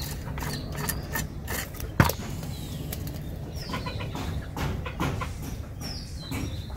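A blade scraping scales off a climbing perch in short rasping strokes, with a sharp knock about two seconds in. Birds chirp in short falling calls several times in the background.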